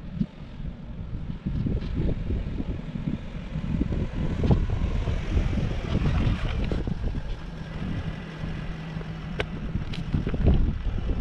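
Wind buffeting the microphone with a steady low rumble. An SUV comes along the road and passes close by about six seconds in, its engine and tyres swelling and then fading.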